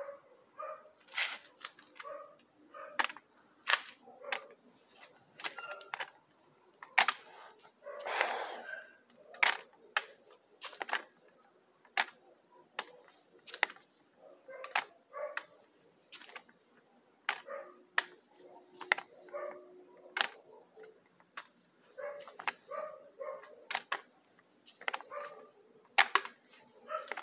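Footsteps in slide sandals on a concrete floor: sharp slaps about once a second with softer scuffs between them, and a longer scrape about eight seconds in.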